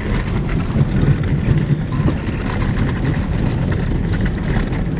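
Tour vehicle driving across rough river-crossing ground, a steady engine-and-road rumble with small jolts and knocks.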